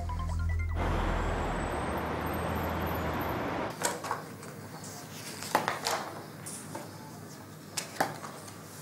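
Background music ends in the first second, giving way to a steady rushing noise with a low rumble for about three seconds. Then papers and small objects are handled at a desk: rustling with a few sharp clicks, a handful in all.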